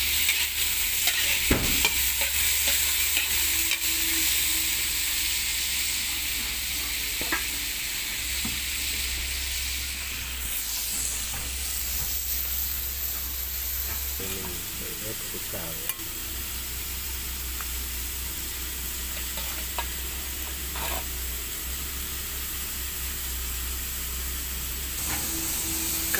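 Small tomatoes sizzling in hot oil in a metal wok over a wood fire, a steady frying hiss. Near the start a ladle stirs them with a scrape against the wok, and a few sharp clicks sound later on.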